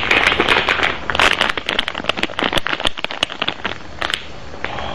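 Packaging being crinkled in the hand: a dense, irregular crackle of many quick clicks that stops about four seconds in.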